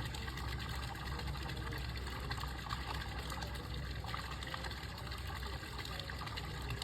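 Water running and trickling, over a steady low rumble.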